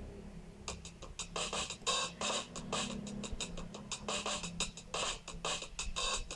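Background music: a low steady drone with a fast, clicking beat that comes in just under a second in.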